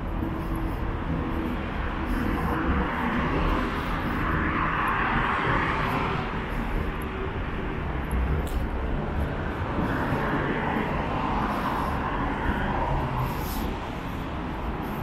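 City street traffic: the steady hum of cars on the avenue, with passing cars swelling and fading about four seconds in and again around ten seconds.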